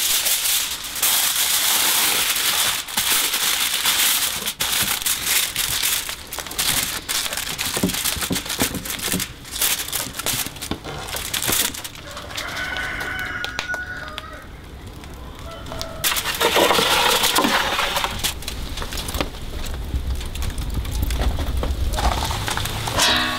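Aluminium foil crinkling and rustling as it is folded over a steel tray. A rooster crows about halfway through and again near the end.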